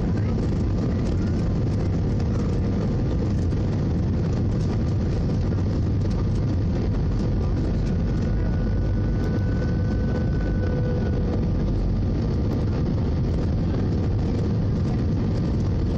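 Steady cabin roar inside an Airbus A319-111 on approach with flaps extended: the CFM56 turbofan engines and rushing airflow heard from a window seat over the wing. Faint steady whines run through it, with a higher one rising out of the roar for a few seconds about halfway through.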